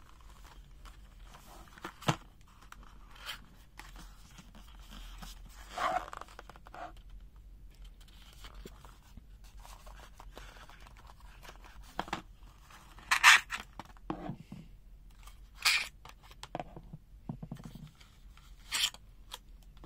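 Cardboard box being handled and opened: flaps and inner packaging rubbing and sliding, with about five sharp scrapes and a few dull knocks.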